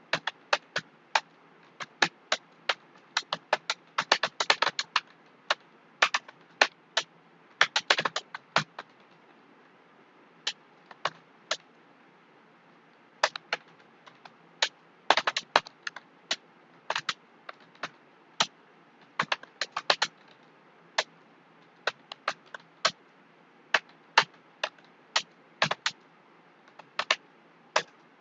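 Keystrokes on a computer keyboard during a typing test: irregular sharp key clicks, sometimes in quick runs, with a pause of about two seconds near nine seconds in.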